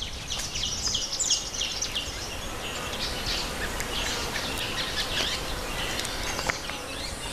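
Natural outdoor ambience: many birds chirping in short, irregular high calls, over a faint background of insects.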